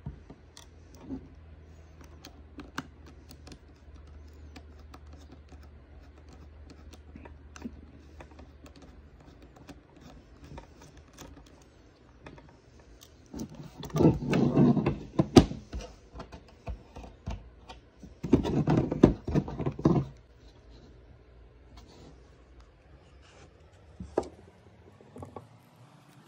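Small clicks and taps of an iPhone 13 being handled and opened with hand tools, a suction cup on its screen and a plastic opening pick. About halfway through come two louder stretches of scraping, rustling handling noise, each about two seconds long.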